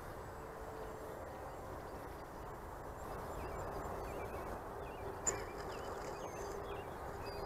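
Faint open-air background: a steady low rush with small bird chirps. Under it a faint steady hum comes and goes, from the small electric motor of the mini Cessna RC plane flying at a distance. A brief click a little over five seconds in.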